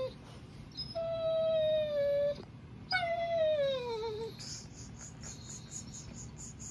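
German Shorthaired Pointer whining for his tug toy: two long, high whines, the second sliding down in pitch, followed by faint, rapid high-pitched whimpering.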